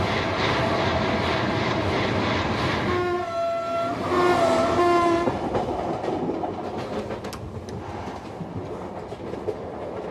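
A passenger train running, its carriages rumbling steadily. The train's whistle sounds two blasts about three and four seconds in, and the wheels clatter over the rail joints after that.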